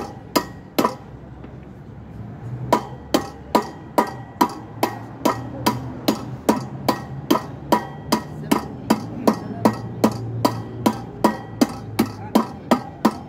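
Hammer striking a steel drift rod set through a motorcycle rear wheel hub, driving out the wheel bearing. Sharp metallic blows with a short ring: two quick ones at the start, then after a pause of about two seconds a steady run of about two to three blows a second.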